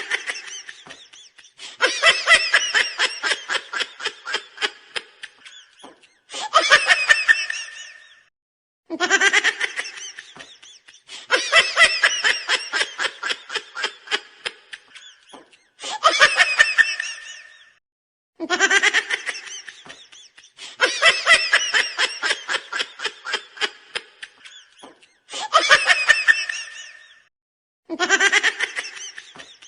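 A recorded laughing sound effect played on a loop: the same burst of rapid, pulsing laughter repeats about every nine and a half seconds, with short silent gaps between.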